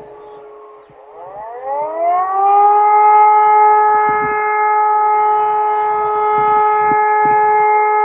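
Civil-defence siren sounding a test alarm: after a falling tail, it winds up from a low pitch about a second in and settles into a loud, steady tone that it holds.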